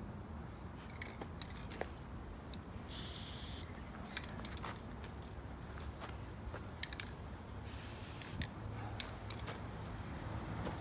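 Aerosol can of white spray paint sprayed at the ground in two short hisses, each under a second and about five seconds apart, with scattered light clicks and taps between.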